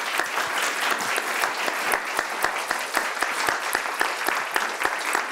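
An audience applauding: a steady patter of many hands clapping.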